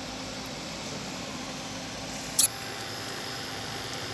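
Steady low background hum with a faint steady tone, and one short sharp click about two and a half seconds in.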